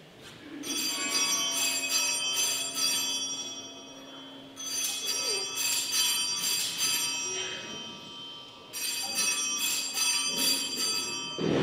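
Altar bells shaken in three bursts of jangling, many-toned ringing at the elevation of the chalice during the consecration.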